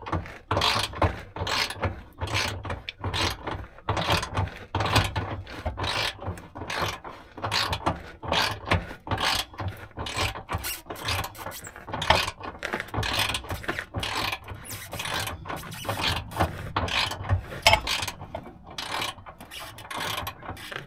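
Replacement spare tire carrier winch on a Land Rover LR4/LR3 being cranked by hand. Its mechanism clicks in a rapid, uneven run of strokes as it winds the cable in and draws the spare tire up.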